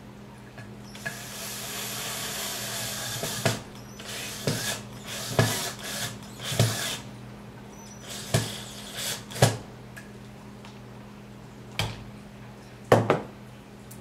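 Cordless drill-driver driving screws into an aluminium LED heat sink to fasten the solderless connectors over the LED stars. It runs steadily for about two and a half seconds, then comes a string of short bursts and knocks as the screws are run down.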